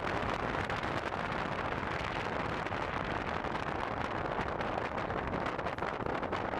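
Steady rushing wind noise from airflow over the microphone of a camera mounted on a hang glider in flight.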